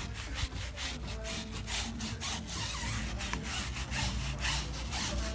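Stiff-bristled tire brush scrubbing a wet rubber tire sidewall with quick back-and-forth strokes, several a second, a rhythmic scratchy brushing.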